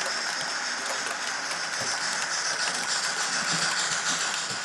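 Model train wagons rolling past on the track with a steady hiss and a fine rattle of small clicks from the wheels and couplings.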